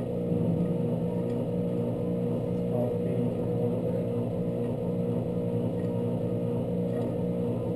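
Vacuum pump running with a steady low hum and drone.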